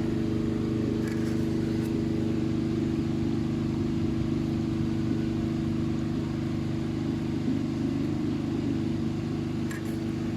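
Steady hum of an engine running at a constant speed.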